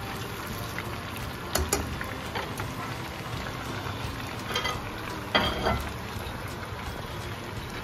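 Chicken thigh pieces deep-frying in oil at 350 degrees in a stainless steel saucepan: a steady bubbling sizzle, the crisping second fry. A few sharp clicks stand out, about a second and a half in and twice near five seconds.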